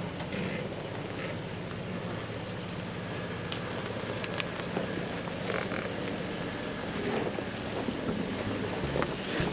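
Jeep Rubicon engine running at low speed as a steady low hum, under a constant rushing noise of tyres working through the wet, muddy trail. A few sharp clicks or knocks come about halfway through.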